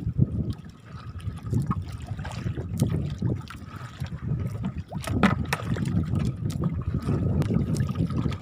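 Choppy sea water sloshing and splashing against a small fishing boat's hull, with scattered knocks and clicks.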